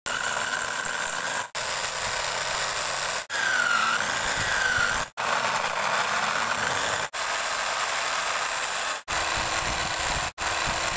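Electric drill motor spinning a wooden workpiece on a homemade mini wood lathe, a steady whine over the hiss of a hand tool cutting the turning wood. The motor's pitch dips and recovers once, about four seconds in. The sound cuts out abruptly and briefly six times.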